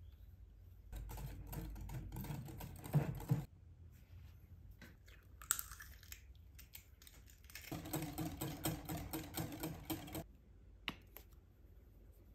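Wire balloon whisk beating a cream cheese and yogurt batter in a glass bowl: two bouts of fast clicking strokes of the tines against the glass, with a short sharp sound between them as an egg is cracked into the bowl.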